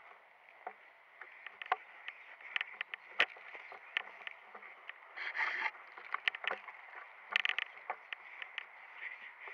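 Footsteps and rustling of someone moving through leafy forest undergrowth, with irregular snaps and clicks of twigs and gear, and two short louder brushing swishes about halfway and a little past two-thirds in.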